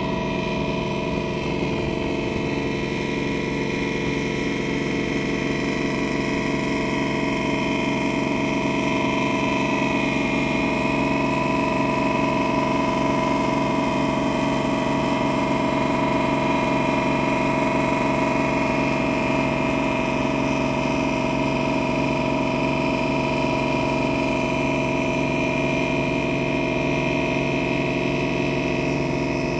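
Boat engine running at a steady speed, a constant drone with several held tones and no change in pace.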